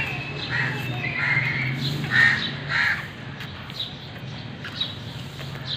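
A crow cawing, about five calls in the first three seconds, the loudest a little past two seconds in.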